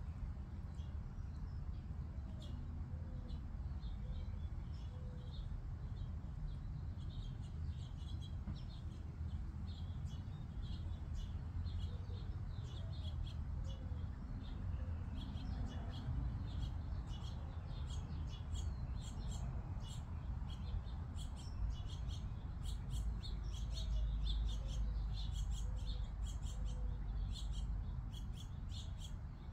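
Small birds chirping and twittering: many short, high chirps that grow busier in the second half. A steady low rumble runs underneath, heaviest near the end.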